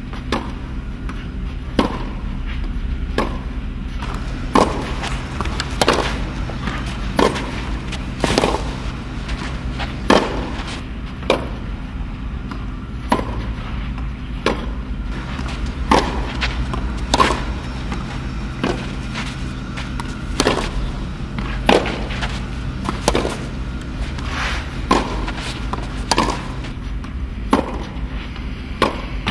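Tennis balls being struck with a racket in a steady hitting drill on a clay court: a sharp pock about every second and a quarter, some with a softer bounce close by, over a low steady hum.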